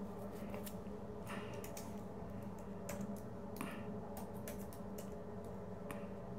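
Keys clicking on a computer keyboard: a few short, irregular bursts of typing, over a steady low hum.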